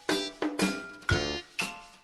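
Background music: a light tune of plucked, string-like notes, each starting sharply and ringing away, several to the second.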